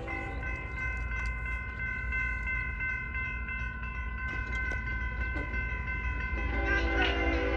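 Union Pacific diesel freight locomotive sounding its horn in one long, steady chord while approaching a grade crossing. Underneath it, the low rumble of the diesel engines grows louder, and fuller lower horn tones come in near the end as the train nears.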